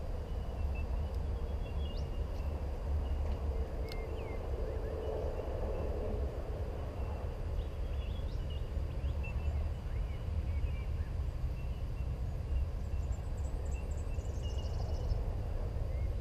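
Outdoor ambience: a steady low rumble with scattered faint bird chirps, and a quick bird trill near the end.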